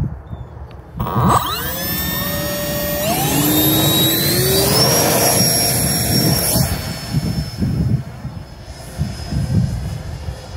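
RC model jet making a close, fast pass. Its motor whine starts suddenly about a second in, with several tones that climb in pitch, then drops away after about six seconds. Wind buffets the microphone throughout.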